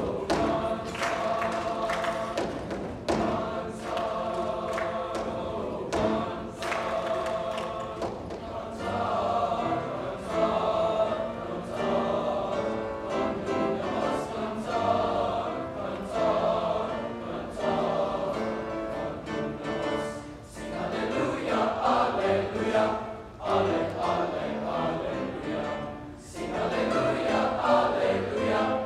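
A large choir of young mixed voices, boys and girls together, singing a song.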